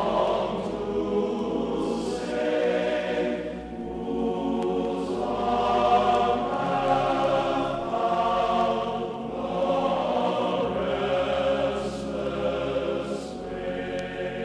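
Slow choral background music: voices holding long chords that change every few seconds.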